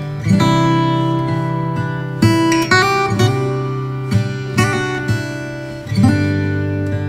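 Background music: an acoustic guitar strumming chords, each chord ringing on for a second or so before the next.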